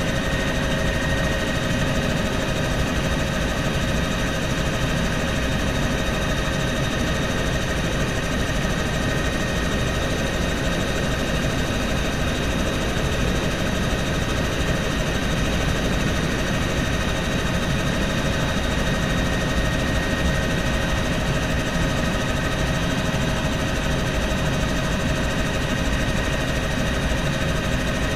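Bell helicopter in cruise flight, heard from inside the cabin: a steady low rumble from the engine and rotor, with a constant whine of several steady high tones over it.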